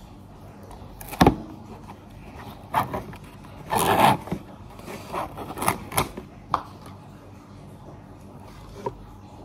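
Kitchen handling noises: a sharp knock just over a second in, a short scraping rustle around four seconds, and several more clicks and taps.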